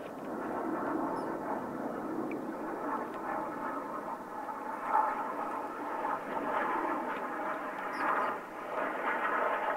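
Distant BAE Hawk T1 jets passing high overhead: a steady jet engine sound with a brief swell about five seconds in.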